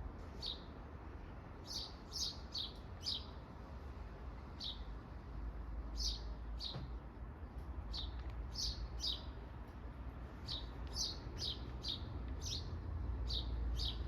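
A small bird chirping: short, high, downward-sweeping chirps repeated irregularly, sometimes two or three close together, over a steady low rumble.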